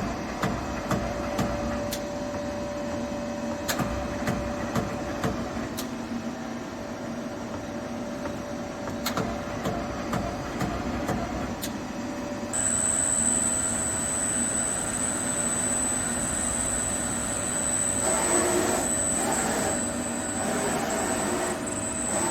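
CNC lathe running, a steady machine hum with scattered sharp clicks. About halfway through, a steady high-pitched whine starts and the sound gets louder.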